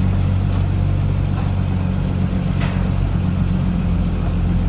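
A vehicle's engine running steadily while driving, heard inside the cab as a constant low drone. A faint short click comes about two and a half seconds in.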